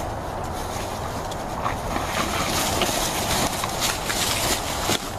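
Steady outdoor rushing noise, wind on the microphone, with a few faint clicks.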